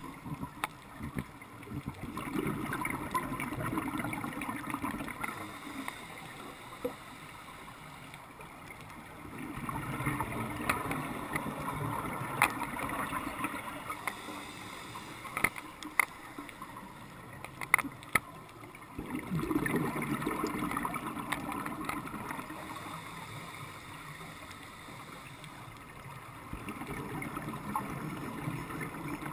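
Scuba diver breathing through a regulator, heard underwater: each exhalation is a burst of bubbles lasting three to four seconds, coming about every seven seconds, with a few sharp clicks between.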